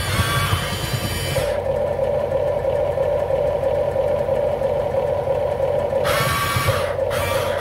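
Toy RC excavator's built-in sound module playing a simulated excavator engine sound steadily through its small speaker, with stretches of hiss added at the start and again about six seconds in.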